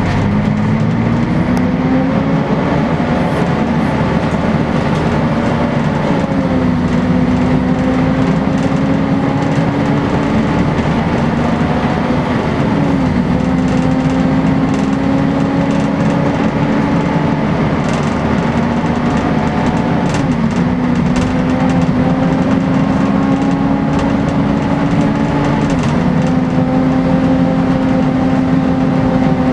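Volvo B10BLE single-deck bus heard from inside the saloon while under way: the rear diesel's drone climbs slowly in pitch and drops sharply four times as the gearbox changes, over a steady roar.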